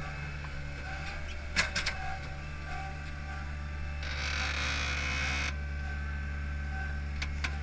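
Hydromak paving machine's engine running steadily. There are a few sharp metallic clicks about a second and a half in and again near the end, and a hiss lasting about a second and a half around the middle as the machine's controls are worked.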